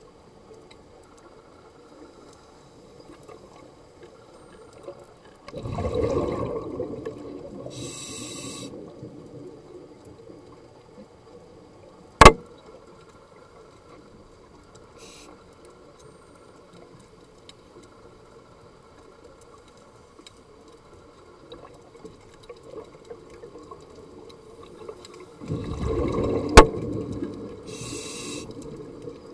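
Scuba diver's regulator heard underwater: two long bubbling exhalations about twenty seconds apart, each followed by a short high hiss. Two sharp clicks are the loudest sounds, one about twelve seconds in and one during the second exhalation.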